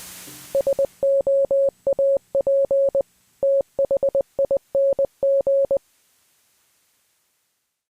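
A single-pitched electronic beep keyed in Morse code, short and long tones spelling out "SOAP THING" (··· --- ·- ·--· / - ···· ·· -· --·) as an intro sting. A fading whoosh-like sound trails off in the first second, before the beeps start.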